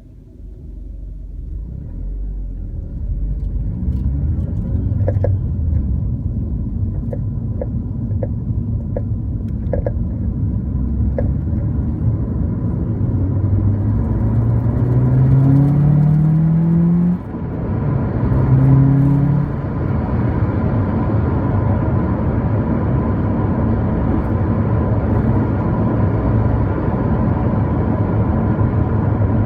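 Car driving off and picking up speed: road rumble and engine noise, the engine pitch rising, dropping briefly about 17 seconds in, then rising again before settling into a steady cruise. From about four seconds in, a run of short sharp knocks comes at irregular intervals for several seconds: the clonk that the owner traces to the suspension.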